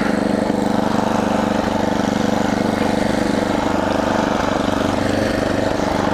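Toro snowblower's small gasoline engine running at a steady speed, warmed up and running smoothly.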